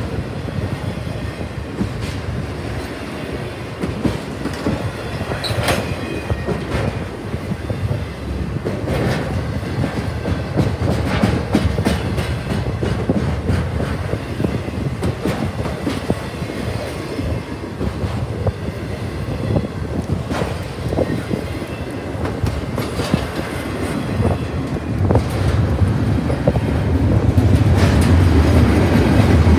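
Intermodal freight train's container well cars rolling past close by: a steady rumble of steel wheels on rail with irregular clacks and knocks, growing louder near the end.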